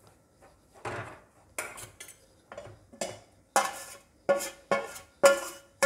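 Steel spoon scraping and knocking against a stainless steel bowl and pan as grated coconut is scraped out into the pan. A series of short metallic scrapes and clinks about half a second apart, growing louder about three and a half seconds in, with a faint ring from the metal.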